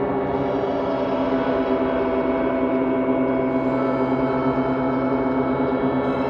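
Dark ambient music from a 1992 four-track cassette recording: a steady drone of many layered held tones, with no beat and no change in loudness.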